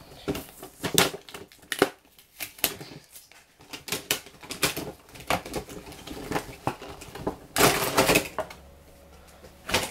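Headset packaging being worked open by hand: irregular sharp crackles and clicks, with a denser stretch of crackling near the end.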